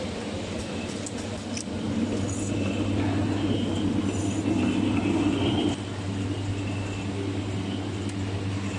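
Automatic can seaming machine running with a steady motor hum, a few light clicks near the start, and a louder stretch in the middle that drops off suddenly, as test cans go through.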